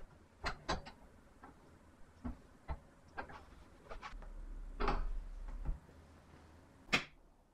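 White acrylic strip being handled and set against the edge of a plywood workbench: a string of irregular light clicks and taps, with a sharper knock about seven seconds in.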